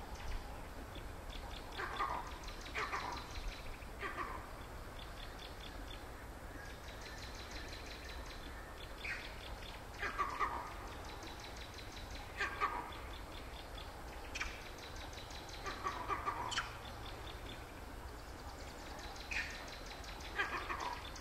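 Vervet monkey calling: short, abrupt calls repeated every second or few seconds, over a fast, high-pitched rattling trill that comes and goes.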